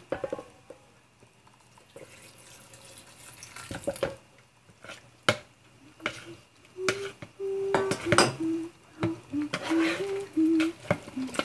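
A spoon stirring wet mincemeat (fruit soaked in brandy, water and red wine) in a plastic tub, knocking and clacking against the sides. It is quiet for the first few seconds, and the knocks come thicker in the second half, along with a series of short low tones.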